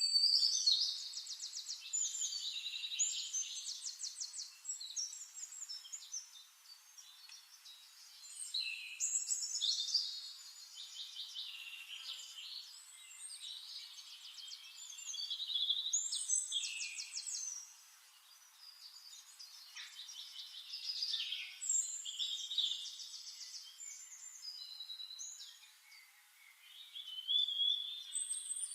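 A songbird singing: long, varied phrases of rapid high trills and quick whistled sweeps, repeated about every six to seven seconds with short pauses between.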